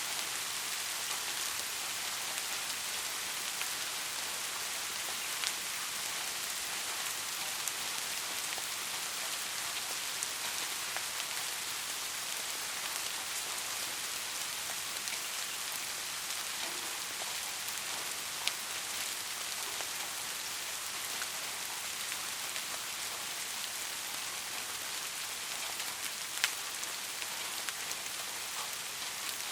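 Steady rain falling, an even dense hiss with a few sharper single drop hits now and then.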